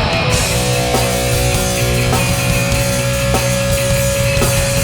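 Hardcore punk band playing live with no vocals: distorted electric guitars and drums, the chords changing about once a second.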